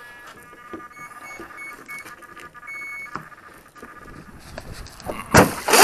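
Brushless ESC start-up tones sounded through the boat's motor as the battery is connected: a steady tone with four short beeps and then a longer one, the arming signal. A little over five seconds in, a sudden loud burst of noise breaks in.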